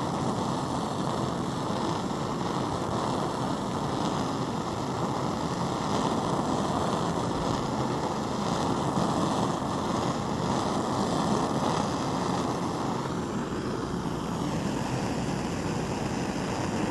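Handheld gas torch burning with a steady rushing flame while heating a glass test tube; the sound shifts slightly near the end as the flame is moved.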